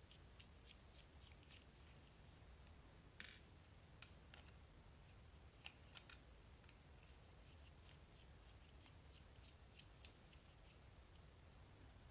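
Faint, sharp metallic ticks and clicks from small parts of a dimple lock cylinder being worked apart to free its last key pin. There is an even run of about four to five ticks a second at the start and a brief louder scrape about three seconds in. Scattered clicks and another run of ticks follow.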